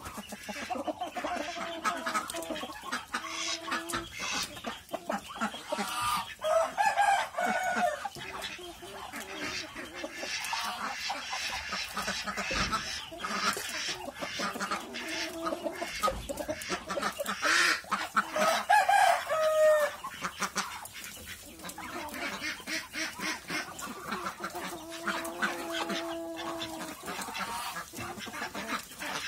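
Chickens and roosters clucking and calling, some calls drawn out for a second or two, over many short sharp taps as they peck at cassava leaves on a wooden slat floor.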